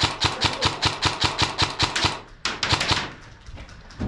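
Airsoft electric rifle (AEG) firing rapidly, about seven shots a second, stopping about two seconds in; a short burst follows about half a second later.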